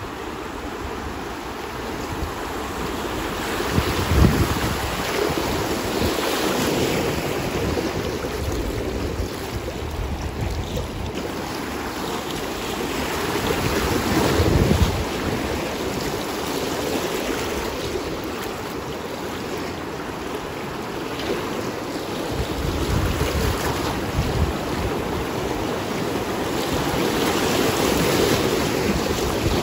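Rushing river water, steady and loud, swelling and easing a few times, with wind buffeting the microphone.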